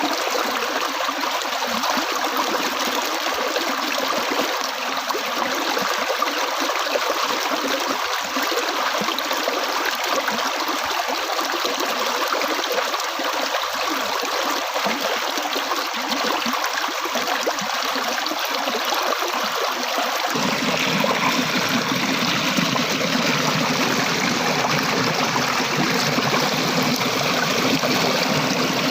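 Flowing water running steadily. About twenty seconds in, the rush abruptly becomes fuller and deeper.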